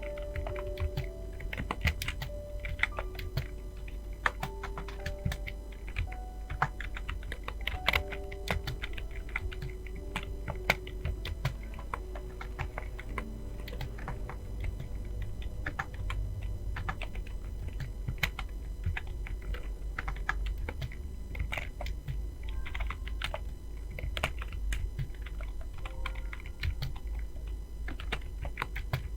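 Fast typing on a computer keyboard: a dense, steady stream of key clicks. Soft background music plays under it through roughly the first half.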